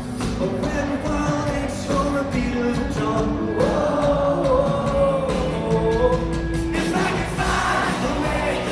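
Live concert music: a singer holding long, sustained notes over the backing band.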